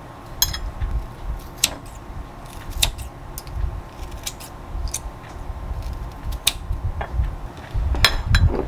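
Kitchen scissors snipping cubes of radish kimchi on a ceramic side plate, with metal tongs clicking against the plate in irregular sharp clicks. A louder cluster of clattering knocks comes near the end as the plate and pan are handled.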